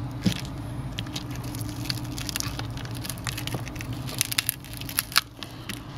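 Irregular small crackles and ticks as the thin foil heat shield and shattered display layers of a Samsung Galaxy S5 are peeled up by hand, over a steady low hum.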